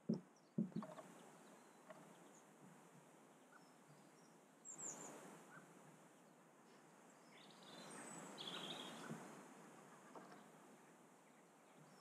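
Quiet outdoor ambience with two sharp taps just after the start, fitting a blackcap's bill pecking at seed on a feeder tray. Small birds chirp faintly and briefly about five seconds in and again around eight to nine seconds.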